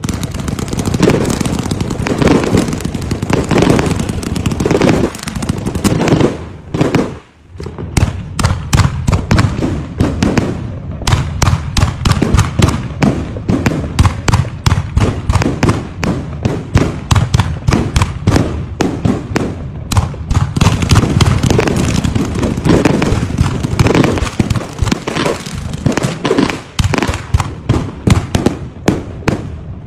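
Fireworks going off in rapid succession: a dense, nearly unbroken run of bangs and crackles as shells are launched and burst overhead, with a brief lull about seven seconds in.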